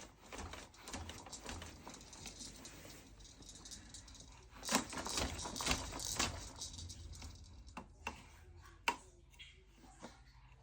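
Clicking and rattling of plastic toys on a Fisher-Price Rainforest Jumperoo baby bouncer, with a dense flurry of clacks about five seconds in, then a few single clicks.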